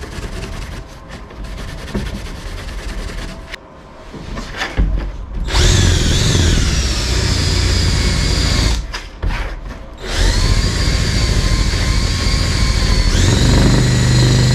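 An abrasive scuff pad is rubbed by hand over a thin aluminum stiffener strip. About five seconds in, a cordless drill starts spinning a nylon abrasive scuffing ball against the aluminum with a whining motor. It stops for about a second and runs again, its pitch stepping up near the end.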